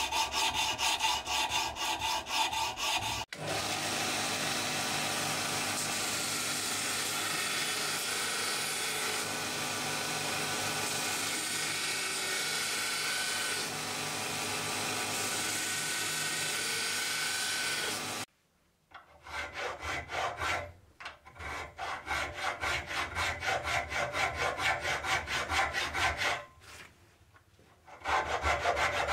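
Steel cleaver blade hand-sanded with abrasive cloth in quick back-and-forth strokes. After about three seconds a belt grinder runs steadily for about fifteen seconds, grinding the handle's round metal end cap. Then a hand file rasps across the cap in rhythmic strokes, with a few short pauses.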